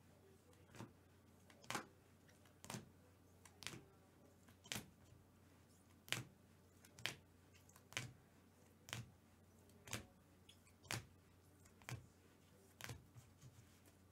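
Trading cards in clear hard-plastic holders being handled by gloved hands: light clicks and taps about once a second, some doubled, as the holders are picked up and set down. A faint steady low hum runs underneath.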